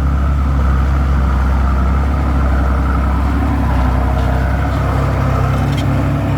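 Heavy diesel engine running steadily: a deep, even drone with no change in revs.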